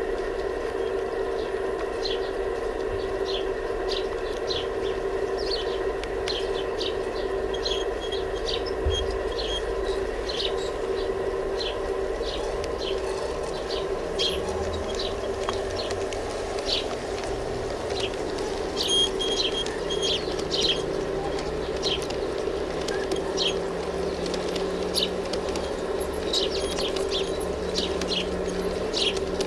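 Small birds chirping in short, repeated high notes over a steady pitched hum; a lower drone joins about halfway through and rises slightly in pitch.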